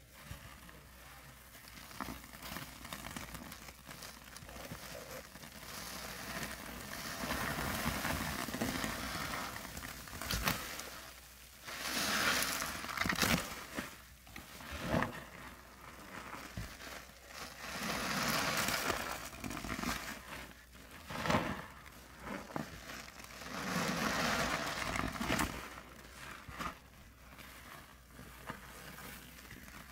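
Gloved hands squeezing and kneading a soapy sponge and lumps of wet white powder in sudsy water: crunching, squelching squeezes that swell and fade every few seconds.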